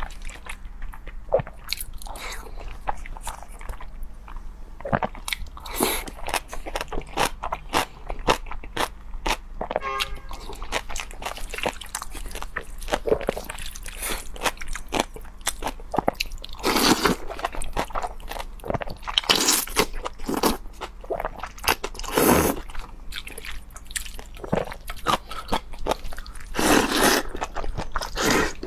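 Close-miked eating: a person biting and chewing crunchy food, with a dense run of sharp crunches and several longer, louder mouth sounds in the second half.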